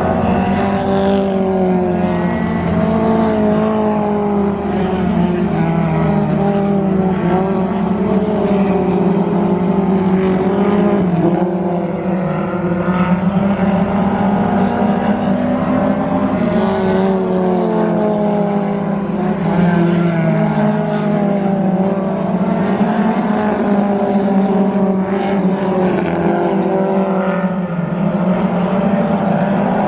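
A pack of Mustang thunder-class race cars running together on a dirt oval, several engines heard at once, their pitch rising and falling as the cars go through the turns.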